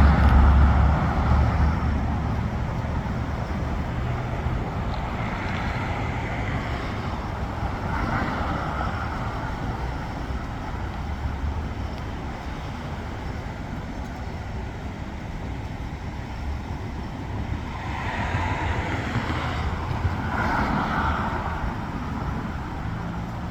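Road traffic going by: a vehicle's low rumble is loudest at the start and fades over the first few seconds, then a steady hum of traffic with a few softer swells.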